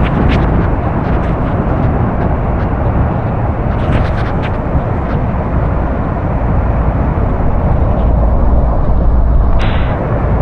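Loud, steady roar of Horseshoe Falls' falling water and spray mixed with wind buffeting the microphone, with a few scattered clicks.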